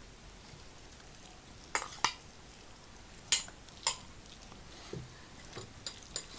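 Dishes and cutlery clinking as food is passed and served at the table: four sharp clinks, then a few fainter taps near the end.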